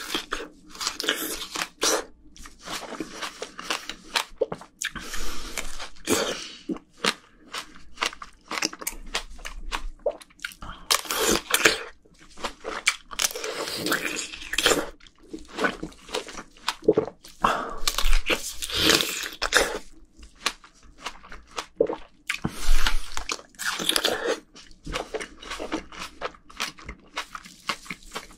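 Close-miked biting and chewing of cold plums chilled on dry ice: crunchy bites into the firm fruit and wet, juicy chewing in irregular bursts.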